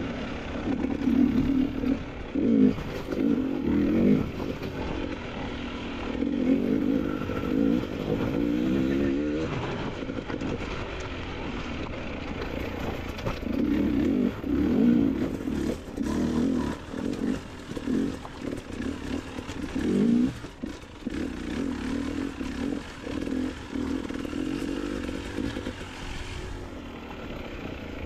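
Motorcycle engine revving up and dropping back again and again under uneven throttle, as when a bike is ridden over a rough creek bed.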